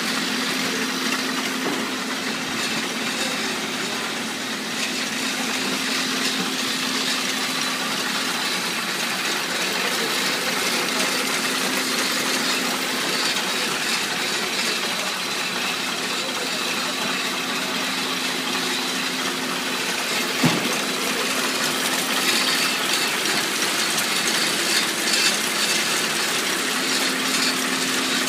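A corrugated-box one-side gluing machine running steadily: a dense mechanical clatter over a steady hum as flat cardboard blanks feed through its belts. One sharp knock stands out about twenty seconds in.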